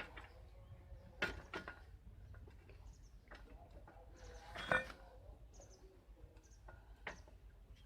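Scattered faint metal clicks and creaks of a bicycle pedal being unscrewed from its crank arm, with one sharper click a little past halfway.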